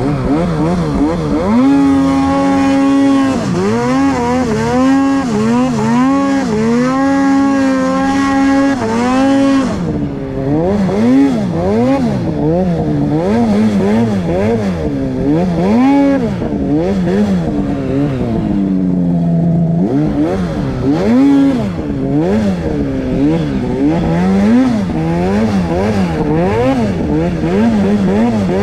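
Snowmobile's two-stroke engine revving up and down over and over as the rider works the throttle through deep powder snow.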